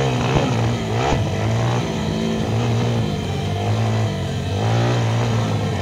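Pit bike engine running, its revs rising and falling over and over.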